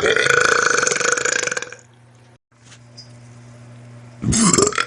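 A man belching on command: one long, loud burp lasting nearly two seconds, then a second, shorter burp near the end.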